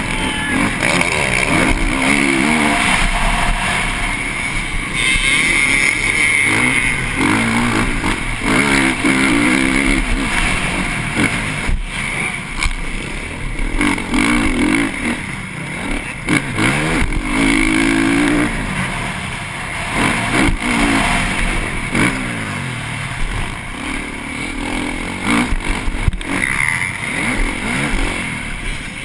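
Motocross bike's 450 cc single-cylinder four-stroke engine (TM MX450Fi) ridden hard, revving up again and again as it accelerates and shifts, then dropping back. Heard from the rider's own helmet.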